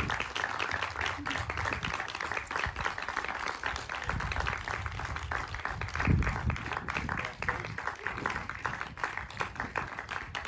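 Audience applauding, with a dull low thump about six seconds in.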